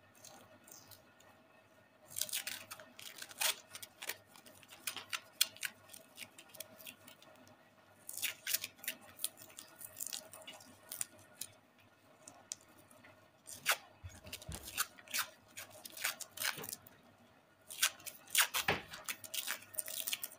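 Adhesive tape crackling and tearing as it is pulled off the roll and wound around a wire, in three bursts of sharp clicks with short pauses between.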